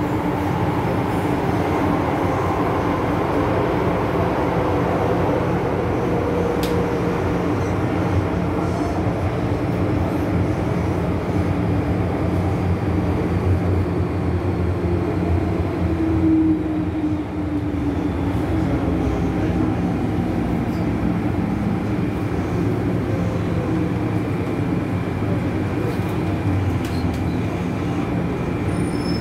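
MTR Island Line M-Train heard from inside the car while running in a tunnel: a steady rumble of wheels on rail, with a motor whine that falls in pitch over the middle of the clip as the train slows.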